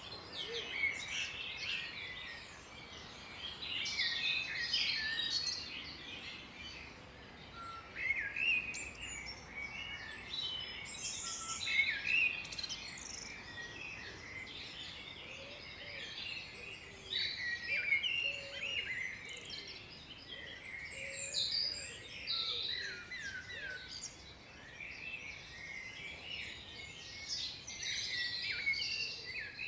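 A chorus of several songbirds singing at once: many short, high chirps and trills overlapping continuously, with a few lower calls mixed in, over a faint steady hiss of outdoor background.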